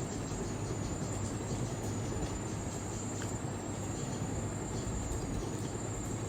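Steady background noise: a constant high-pitched drone of insects over an even low rumble, with no distinct events.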